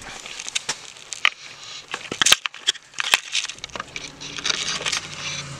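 Handling noise from a hand-held camera: irregular sharp clicks and crackles over a steady hiss. A low steady hum comes in a little past halfway.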